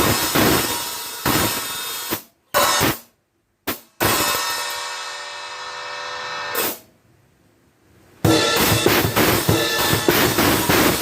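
Drum kit played with an Armada Achilles AXL cymbal set. First come several hits that are cut off short. Then a cymbal crash rings for a couple of seconds and is choked, and after a short pause the full kit comes in with a busy beat.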